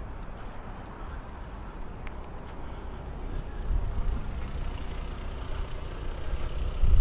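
Low rumble of car engines running at slow speed close by, a little louder in the second half as a car draws up alongside.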